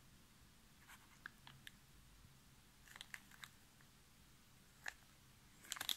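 Faint, scattered crinkles and clicks of clear plastic wrapping as a sealed linear-rail sliding block is handled and turned over in the hand, with a small cluster near the end.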